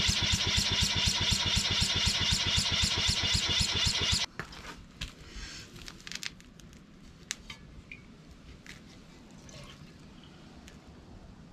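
Electric starter cranking a small single-cylinder engine through a ring gear on its flywheel fan: a fast, even beat of compression strokes for about four seconds without the engine catching, then it cuts off abruptly. The owner puts the hard starting down to compression that is too high. Faint clicks and rustles follow.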